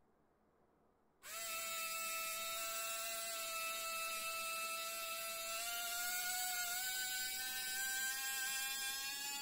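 Mini 4WD 130-type DC motor, rebuilt with neodymium magnets, switched on about a second in and running free with a steady high whine that creeps slightly up in pitch as it spins up. It reaches about 17,000 rpm, no faster than a stock motor.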